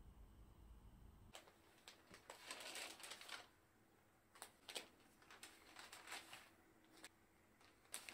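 Faint rustling and crinkling of a paper gift bag being opened and a clear plastic bag being handled, with scattered small clicks. It starts about a second in.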